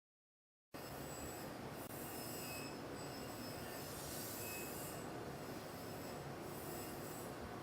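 YHM CF-320 CNC spring coiling machine running, feeding and coiling 1.5 mm wire into compression springs. It starts suddenly just under a second in as a steady metallic running noise with a couple of brief high squeals.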